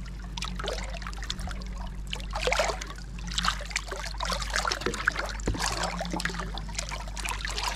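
Water trickling and sloshing in small, irregular splashes as a large barramundi is held by the jaw at the surface and moved through the water to revive it before release.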